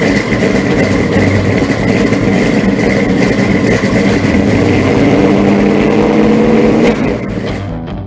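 A car engine running with a rapid, even pulse, climbing a little in pitch near the end, then fading out.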